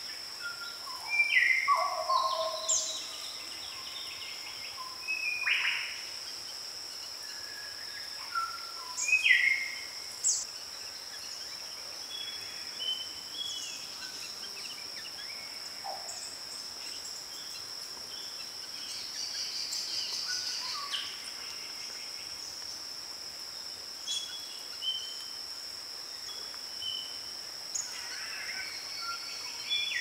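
Tropical forest ambience: a steady high-pitched insect drone with scattered short bird calls and chirps, busiest in the first ten seconds.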